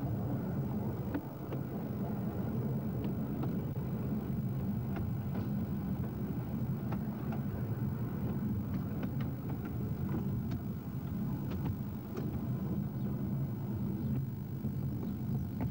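Miniature tram running along narrow-gauge track, its drive giving a steady low hum, with scattered light clicks from the running gear and track.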